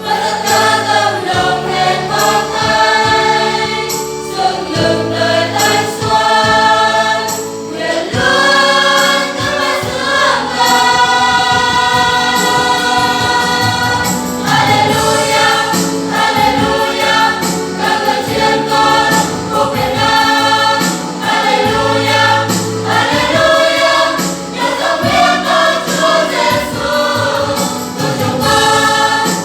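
A choir sings a Christian hymn of praise to the Lamb, with sustained, harmonised vocal lines over instrumental backing.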